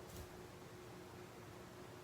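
Near silence: room hiss with a faint steady hum, and one faint soft tick right at the start from handling the small fingerboard parts.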